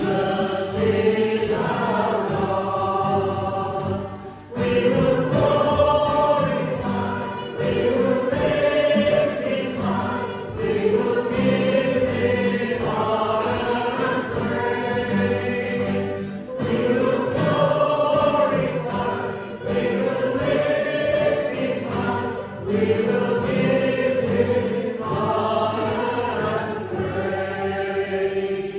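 Church congregation singing a hymn in unison with instrumental accompaniment, in phrases of a few seconds each; the singing comes to an end right at the close.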